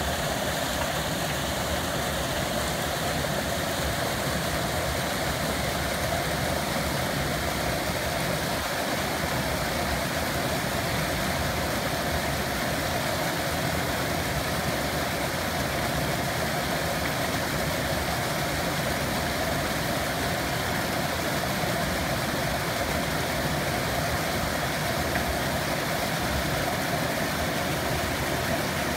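Creek water rushing steadily over a rock ledge in a small cascade, splashing into the pool below.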